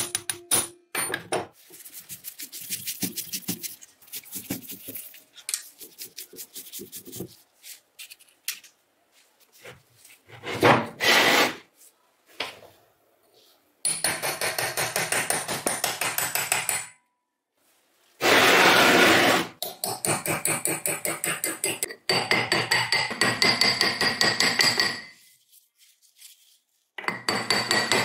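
Steel hammer and chisel striking the rusty cast-metal housing of a Makita bench grinder to split it apart, in fast runs of metal-on-metal taps with short pauses. A few sharp clicks and knocks come first, as a driver bit works at a rusted housing screw.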